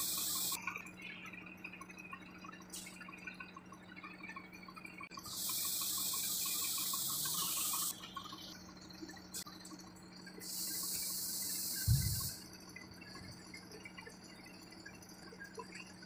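Three bursts of high hissing like compressed air escaping: a brief one at the start, one of about two and a half seconds, and one of about two seconds. A steady low hum runs underneath, and a single thump comes about twelve seconds in.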